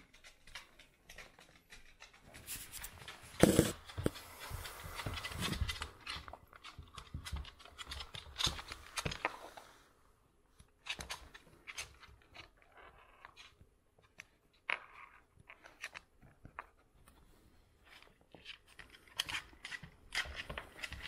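A corgi squeezing and crawling under a low sofa on a wooden floor: scattered claw scrapes and clicks and fur rubbing, with one louder knock about three and a half seconds in.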